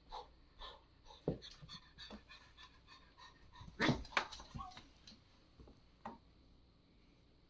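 A pet panting in quick, short breaths, with a louder burst of breath about four seconds in, then fading to fainter breaths.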